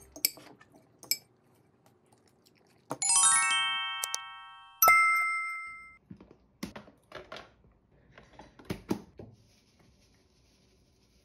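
Two bright chime sound effects, the kind edited in with a subscribe-button animation: a rising run of bell-like notes about three seconds in that fades out, then a single ding about five seconds in. After them come a few light taps and clinks of a utensil against a small glass bowl as chili seasoning is mixed.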